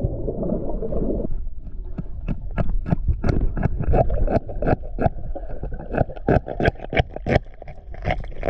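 Underwater, a hand axe chipping at oysters grown onto a concrete bridge piling: a rapid, irregular string of sharp clicks and knocks, several a second. A low rush of water noise fills the first second.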